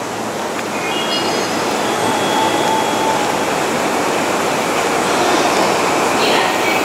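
A JR East E235 series electric train running into the station platform, with steady wheel-on-rail and running noise. A few brief high-pitched tones come about a second in.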